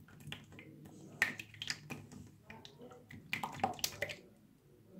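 Blue Glacier Slime (iceberg slime) being squeezed and pressed by hand on a tabletop, giving a run of sharp wet clicks and pops, with the loudest cluster a little past three seconds in.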